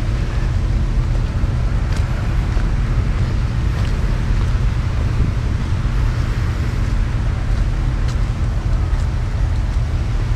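A boat's engine running steadily, with a constant low hum, mixed with wind buffeting the microphone.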